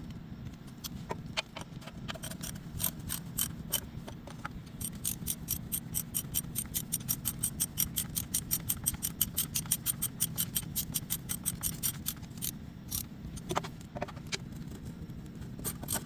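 Hand tool working on metal: a few scattered sharp clicks, then from about five seconds in a long even run of metallic clicks at about five a second that stops near twelve seconds, over a steady low hum.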